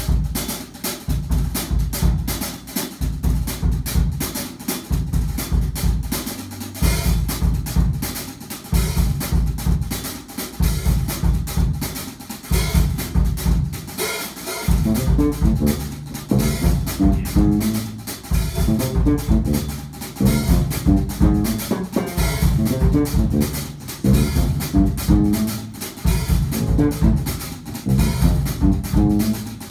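Live jazz combo playing a funk groove: electric bass repeating a short low riff over a drum kit, with further pitched parts joining about halfway through.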